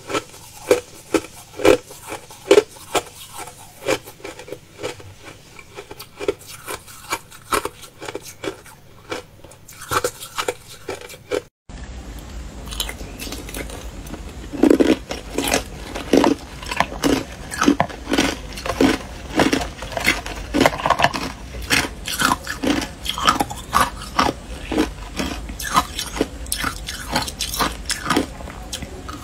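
Ice being bitten and chewed close to the microphone: quick small crunches of crushed ice, then after a sudden cut louder, heavier crunches of hard clear ice over a low steady hum.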